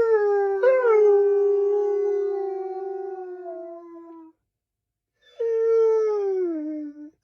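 An animal's drawn-out wailing call, held on one pitch and sliding slowly down for about four seconds, then after a short break a second, shorter call falling in pitch.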